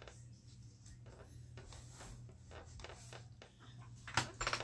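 Faint scattered clicks and rustles of small handling, over a low steady hum, with a sharper click and a short louder rustle near the end.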